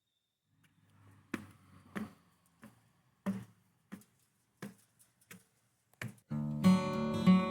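Acoustic guitar background music: quiet, evenly spaced plucked strokes about every two-thirds of a second, then full strummed chords come in about six seconds in.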